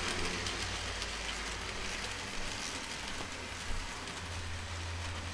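Model train, three GP30 diesel models pulling freight cars, running on its track: a steady rushing rattle of wheels on rails over a low steady hum, with one small click about two-thirds through.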